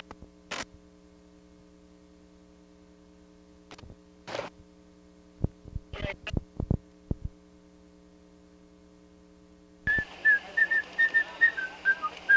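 Steady low electrical hum. A few sharp clicks come in the middle. Near the end louder outdoor noise cuts back in with a quick run of high chirps that fall slightly in pitch.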